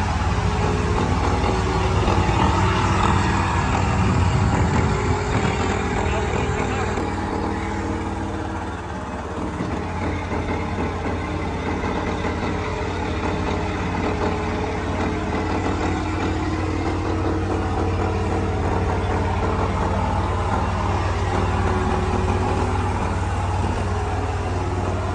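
Combine harvester's diesel engine and machinery running steadily with a constant low hum; about seven seconds in, the higher hiss drops back and the engine hum goes on.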